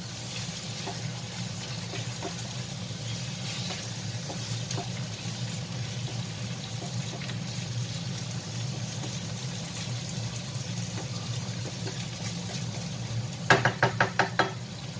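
Chicken gizzards and onions sizzling steadily in a hot nonstick wok while a wooden spatula stirs them. Near the end comes a quick run of about seven sharp knocks within a second.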